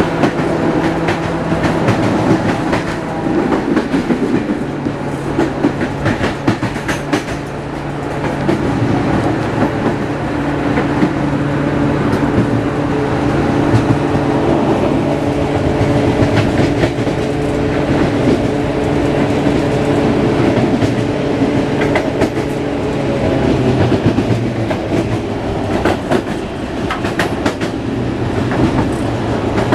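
Caterpillar-engined LDH diesel-hydraulic locomotive working under load as it pulls the train away, heard from the coupling just behind it, with wheels clicking over rail joints. The engine note is steady and shifts in pitch about four seconds in and again a little past twenty seconds.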